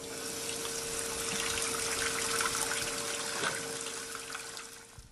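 Water running from a tap, an even splashing hiss with a faint steady tone under it; it fades out near the end.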